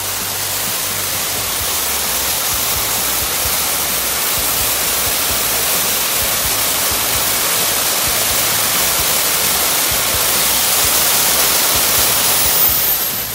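A smoke-producing pyrotechnic burning in a tube on the ground gives off a steady, loud hiss. The hiss grows a little louder toward the end, and a faint falling whistle comes in near the end.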